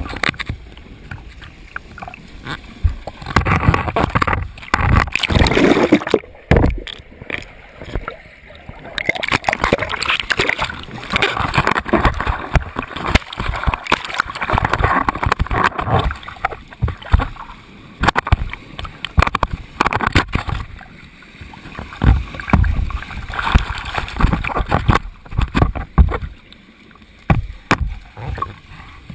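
Water splashing and churning in uneven surges, with many short low bumps.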